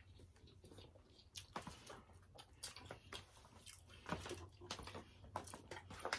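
Faint chewing and lip-smacking of people eating, heard as scattered short wet clicks that come more often in the second half.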